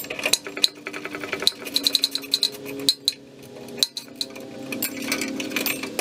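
Wrench on the upper mounting nut and bolt of a new rear shock absorber, making metal clicks and clinks as the bolt is snugged. A quick run of even clicks comes about a second in.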